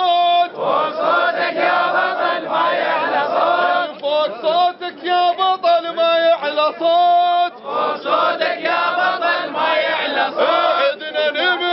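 A crowd of men chanting protest slogans in Arabic, call-and-response style: a single voice's call alternates with the massed answering chant of the group.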